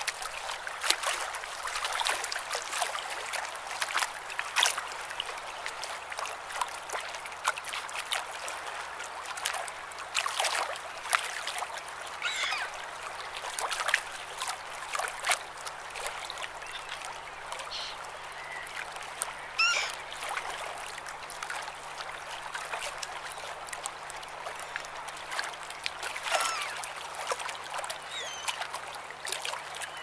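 Small waves lapping and splashing at the shore as a steady wash of many little splashes, with short gull cries about three times.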